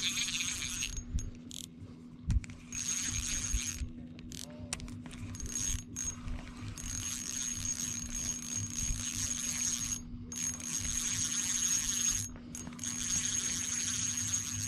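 Spinning reel being cranked against a hooked trout, its gears whirring with a thin high whine in stretches that stop briefly several times as the cranking pauses.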